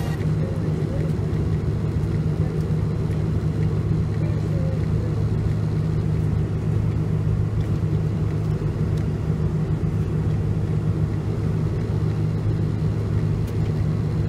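Steady low rumble and hum inside the cabin of a Boeing 747-400 airliner, even and unchanging throughout.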